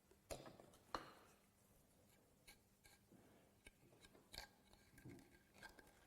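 Near silence with a few faint clicks and taps from handling wood parts and a glue bottle while gluing a joint, the two most distinct in the first second.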